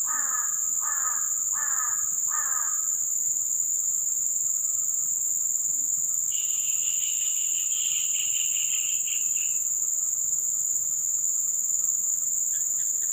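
Steady high-pitched insect drone, with a bird calling in a run of four quick descending notes in the first few seconds and a buzzy trill lasting about three seconds midway.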